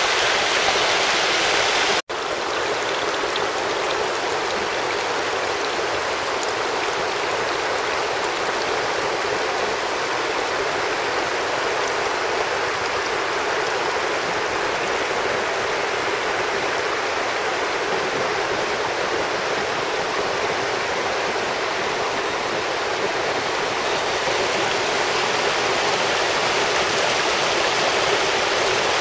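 Mountain stream rushing and splashing over rocks, a steady rush of water. It cuts out for an instant about two seconds in.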